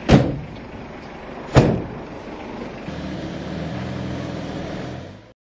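The rear doors of a police van slammed shut, two loud bangs about a second and a half apart. About three seconds in, a steady low engine hum begins.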